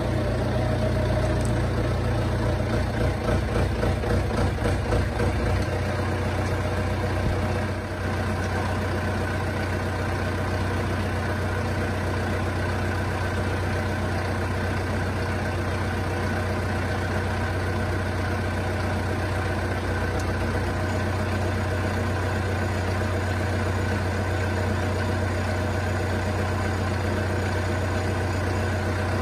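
Lovol M504 yard loader's diesel engine running as the loader pulls up, unevenly for the first few seconds, then idling steadily from about eight seconds in.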